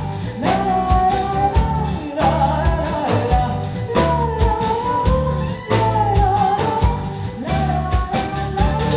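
A live rock band playing: a melodic lead line gliding over bass guitar and a drum kit beat.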